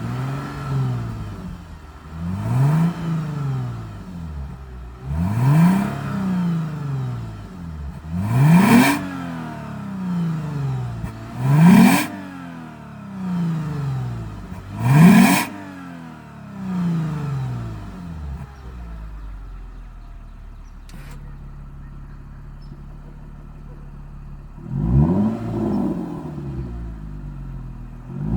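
Lexus GS350 F Sport's 3.5-litre V6 through an aftermarket valved active exhaust, revved repeatedly in quick blips, each rising and falling back, the sharpest ones about halfway through. It drops to a steady idle for several seconds, then is revved twice more near the end.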